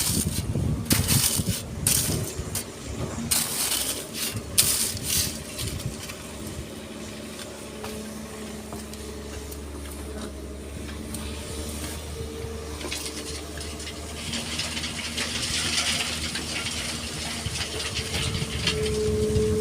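Excavator running and loading sand and stones into a dump truck: a rapid clatter of rocks hitting the truck's bed over the first several seconds, then a steady engine drone. A hissing rush comes about three-quarters of the way through, and the engine note rises near the end.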